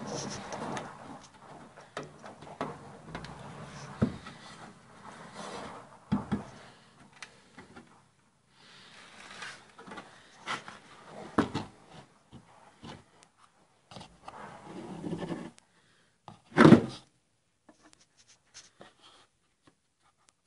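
Close handling noise from a hand working around the camera and the car's bodywork: scattered rubbing and light knocks, with one sharp, much louder knock about three-quarters of the way through.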